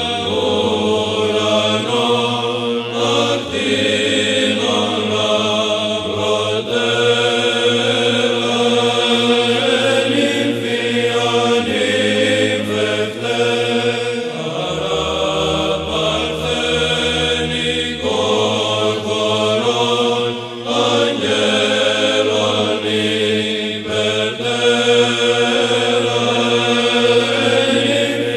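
Byzantine chant: voices singing a slow melody over a held low drone note (ison). The drone drops lower for a few seconds midway and then returns.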